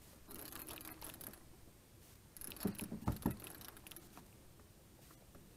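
Quiet handling noise: light clicks and rattles, then three short knocks a little past halfway.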